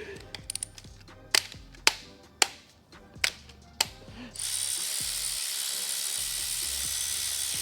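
Several sharp metallic clinks of hand tools against engine parts, about half a second apart, then a steady loud hiss that starts a little past halfway through.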